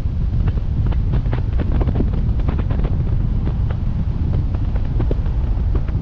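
Wind buffeting the microphone of a GoPro MAX mounted on the outside of a moving car, a loud steady rumble, with a scatter of sharp taps from raindrops striking the camera.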